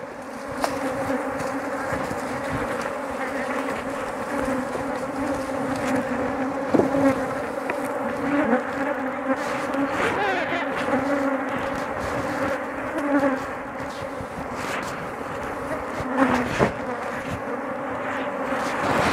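Many honey bees buzzing around an opened hive during a honey harvest: a steady, dense hum, with a few brief knocks.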